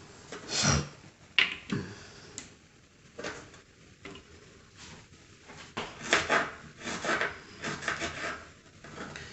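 Kitchen knife slicing vegetables on a cutting board: irregular chops and scrapes, coming more often in the second half.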